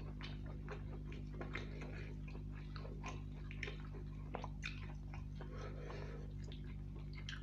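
Wet, sticky crackling and squishing of fingers tearing apart a whole chicken soaked in thick curry gravy, many small irregular clicks over a steady low hum.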